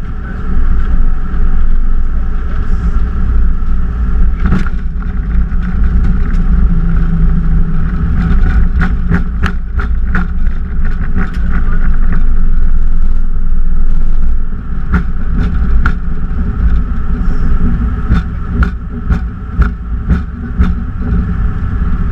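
Embraer E190 airliner's landing rollout heard inside the cockpit: a loud, steady low rumble from the wheels and twin turbofans on the runway, with a steady high tone over it. Short clicks and rattles of cockpit fittings come through the rumble, bunched around eight to eleven seconds in and again from about fifteen seconds on.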